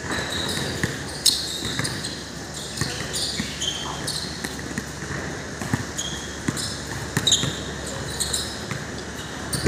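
A basketball bouncing and thudding on a hard court during play: a run of irregular knocks. Short high squeaks and players' voices are mixed in.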